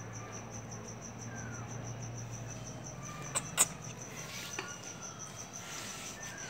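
A steady, high-pitched chirping that repeats in quick even pulses, over a low hum. Two sharp clicks a little past halfway.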